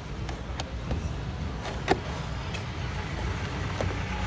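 A few sharp plastic clicks, the loudest about two seconds in, as a car door's trim pieces are forced loose, over a low steady rumble.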